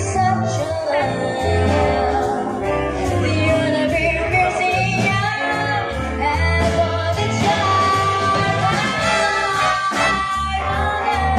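A woman singing a jazz song with a big band behind her: bass, drums and horns accompanying the sung melody.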